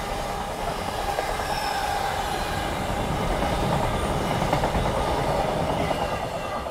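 Loaded container flat wagons of a fast freight train rolling past: a steady rumble and rattle of steel wheels on the rails, easing off slightly near the end.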